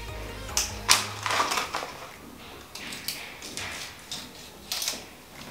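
Razor blade cutting and scraping along the edge of peel-and-stick contact paper on a countertop: a series of sharp, crackling scrapes and clicks, unevenly spaced.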